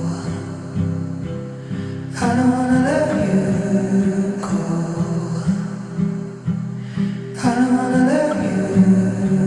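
Background music: a slow song with sustained chords and a wordless sung or hummed vocal line.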